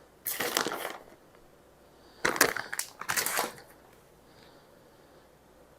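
Three short crunchy scraping noises from handling food and utensils while filling strombolis: one near the start, then two close together about two seconds later.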